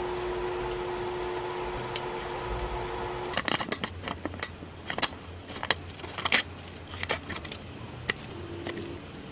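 A small motor runs with a steady hum for about three seconds and stops. Then come a run of sharp, irregular clicks and taps, like parts being handled or worked by hand, with a brief burst of the hum again near the end.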